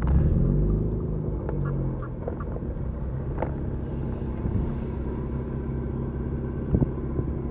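Mazda RX-8's two-rotor rotary engine running at low speed as the car rolls slowly, its pitch rising and falling briefly in the first two seconds. A couple of short clicks come partway through.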